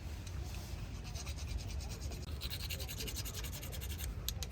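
A fire starter being scraped over and over to throw sparks: a rapid, high-pitched rasping, thickest through the middle, with a couple of sharper scrapes near the end.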